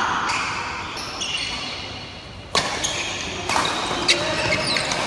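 Badminton rally: sharp racket strikes on the shuttlecock, a hard one about two and a half seconds in, with short high squeaks of court shoes on the floor.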